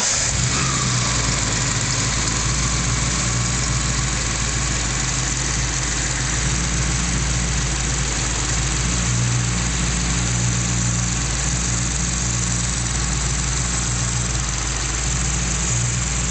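Triumph Stag's freshly rebuilt 3.0-litre V8 idling steadily and evenly, just after starting, on finely tuned carburettors: smooth as silk.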